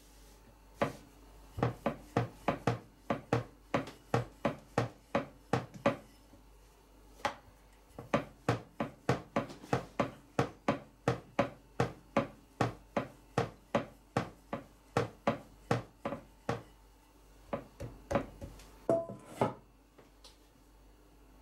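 Wooden rolling pin knocking and rolling on a marble board as flatbread dough is rolled out: a quick run of wooden knocks, about two to three a second, with a short pause partway through and a few scattered knocks near the end.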